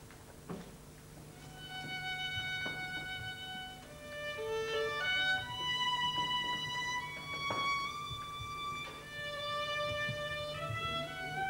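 A violin playing slow, long held notes that step from pitch to pitch, starting about a second in.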